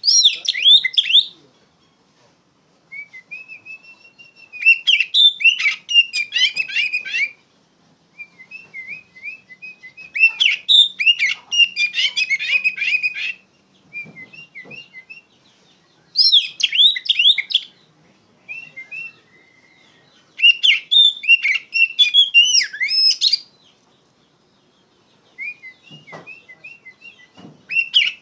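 Oriental magpie-robin (kacer) singing a loud, full song in phrases of a few seconds, each a rapid run of varied whistled notes, with short pauses between phrases.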